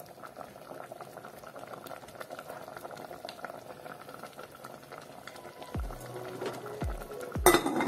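Smoked pork stew boiling hard in an aluminium pot, a steady bubbling and sputtering. Near the end a thudding music beat comes in, with a loud sudden burst of noise just before the end.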